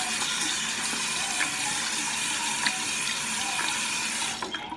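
Bathroom tap running steadily into a sink, shut off near the end.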